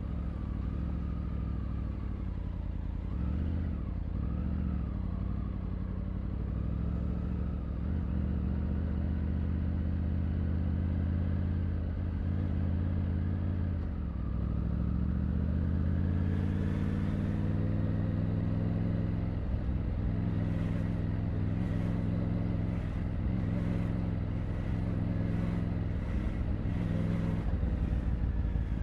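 Triumph Tiger 900's inline three-cylinder engine under way in city riding, its pitch rising and falling with the throttle. About halfway through it drops back, then climbs in a long steady pull and stays up at higher revs.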